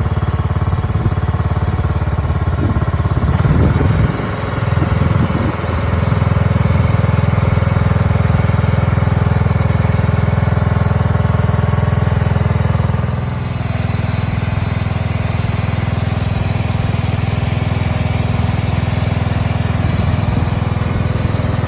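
Cub Cadet riding lawn tractor engine running steadily as the tractor is driven along, its note easing slightly a little past halfway.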